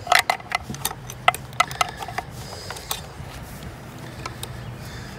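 Wrench clinking and clicking on the carburetor mounting nuts of a 1968 Evinrude Fastwin outboard as they are worked loose: metal-on-metal ticks come in a quick run over the first two seconds, then scattered. A steady low hum sits underneath.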